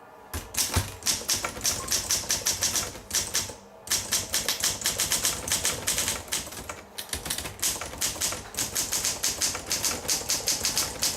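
Olympia SM3 portable manual typewriter being typed on: a quick, uneven run of keystrokes, pausing briefly about four seconds in and easing off again around seven seconds.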